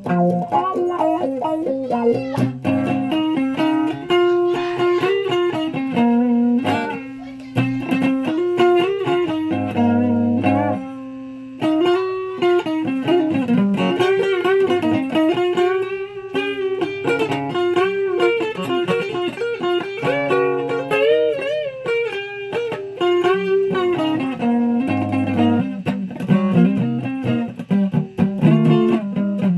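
Guitar being played: a continuous line of plucked notes, some bent and wavering, with a short pause about 11 seconds in.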